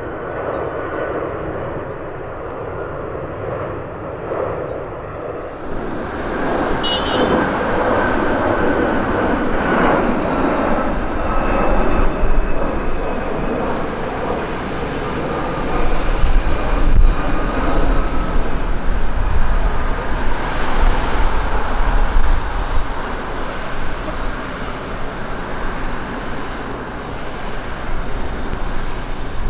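Jet engines of a Boeing 747-200 freighter running. The sound grows louder and fuller about five seconds in, and a deep rumble joins it from about the middle on.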